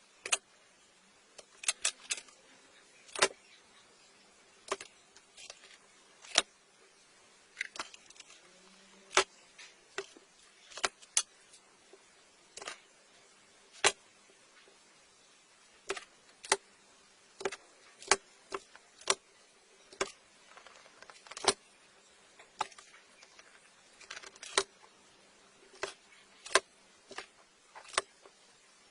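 Irregular sharp clicks and taps, one every second or two, as of small hard objects being handled.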